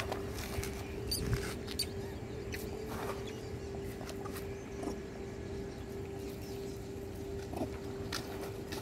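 A troop of macaques feeding, with brief high squeaks and scattered short clicks and rustles, most of them in the first couple of seconds. A faint steady hum runs underneath.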